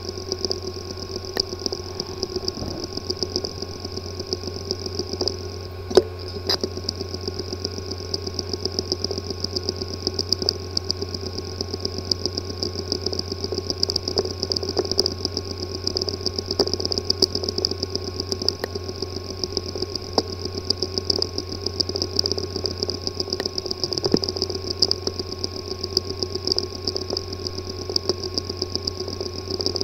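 Hard disk drive with a physically damaged disk assembly, powered up and running with a steady whirring hum and rapid fine ticking throughout, plus one sharper click about six seconds in. The sound is the sign of internal mechanical damage that leaves the drive inaccessible to any computer.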